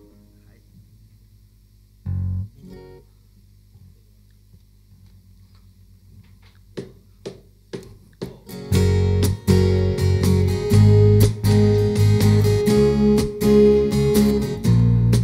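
A small acoustic band starting a slow song. A single low thump comes about two seconds in, then four light clicks a little under half a second apart count in. Acoustic guitars and electric bass start strumming about nine seconds in and keep playing loudly.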